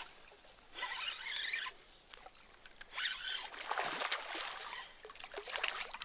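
Water splashing at the surface as a hooked tararira thrashes at the float, in short bursts about a second in and again around three to four seconds in.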